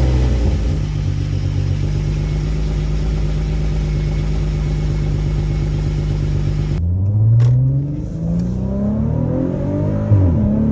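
VW Atlas 3.6 VR6 engine running at a steady fast idle after starting, its exhaust leaking through a clamp that has rusted right through. After a cut about seven seconds in, the engine speed rises and falls as it is revved or driven.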